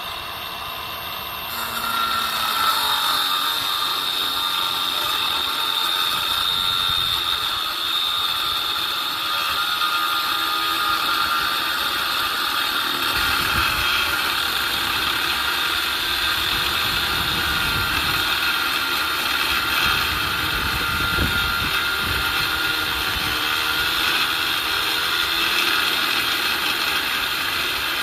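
Milwaukee M18 Fuel 2780-20 cordless angle grinder spinning with a steady high whine, then cutting without a break from about two seconds in, where the sound grows louder and rougher.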